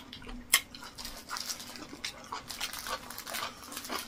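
Close-miked eating sounds: a sharp click, then a dense run of small wet clicks and smacks from chewing and breathing, with a small plastic packet crinkling in his hands near the end.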